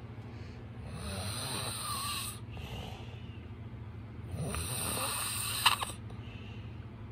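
A man snoring in his sleep: two long snores about three seconds apart, with a sharp click near the end of the second.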